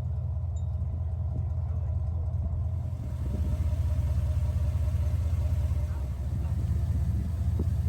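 A motor vehicle's engine running with a deep, steady rumble, which gets louder about three seconds in.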